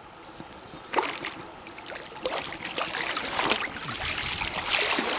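Water splashing and sloshing as a landing net is dipped and swept through shallow river water, starting about a second in and getting louder.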